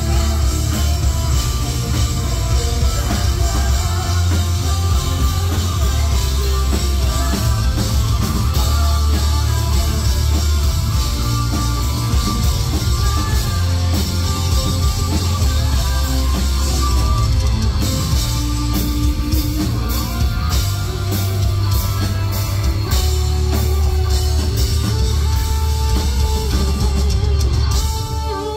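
Live heavy metal band playing loudly: electric guitar over a drum kit and bass.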